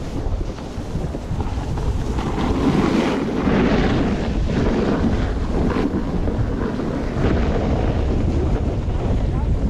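Wind buffeting an action camera's microphone while snowboarding downhill, a steady rumble, with the hiss of the snowboard sliding over snow swelling up from about two to six seconds in.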